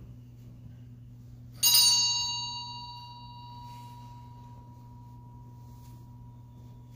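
A small bell struck once about two seconds in. Its clear tone rings on and fades slowly over several seconds.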